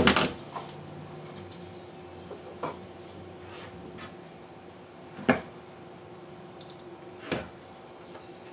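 A loud knock right at the start as a cordless drill is set down on a plywood cabinet floor, then a few light clicks and taps of hands handling tools and a glue bottle over a low steady hum.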